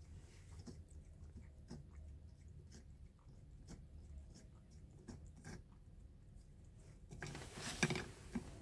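Tabby cat licking yogurt from a small cup: a run of soft, irregular wet tongue clicks and smacks. Near the end there is a brief, louder rustling noise.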